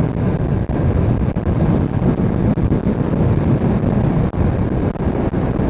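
Wind rushing over the microphone on a Bajaj V15 motorcycle ridden at highway speed, with the bike's single-cylinder engine running steadily underneath.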